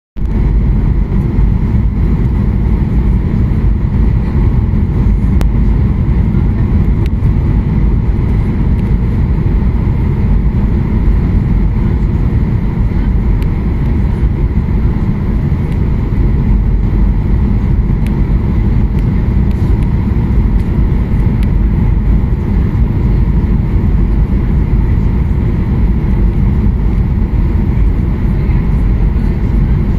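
Boeing 737-800 cabin noise on approach: a loud, steady rumble of its CFM56 jet engines and rushing airflow, heard through the fuselage from a seat over the wing, with a faint steady whine above it.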